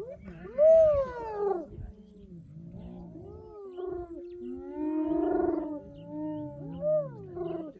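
A lioness growling over a kill while hyenas call around her: a series of wailing calls that rise and fall in pitch, loudest about a second in, over a low growl.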